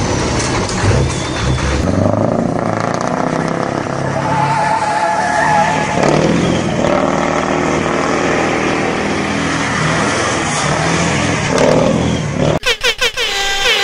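Semi-truck tractor unit doing donuts: its diesel engine revving hard while the rear tyres squeal and skid on the pavement. Near the end the sound cuts abruptly to a quick pulsing sound.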